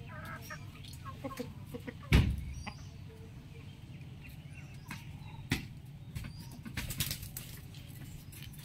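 Chickens between crows: a few soft clucks, then a loud thump about two seconds in, a sharp knock, and a quick run of wing flaps near the end, with faint small-bird chirps.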